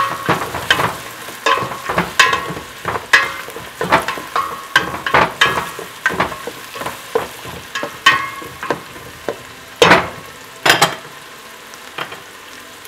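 A spoon stirring and scraping garlic, onion and dried baby shrimp frying in oil in a stainless steel pot, with repeated knocks against the pot that ring briefly, over a light sizzle. The stirring stops near the end, leaving only the sizzle.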